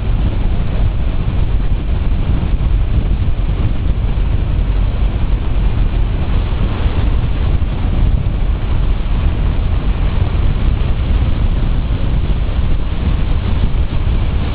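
Steady low wind buffeting on the microphone of a motorcycle moving at speed, with the bike's engine and road noise mixed underneath.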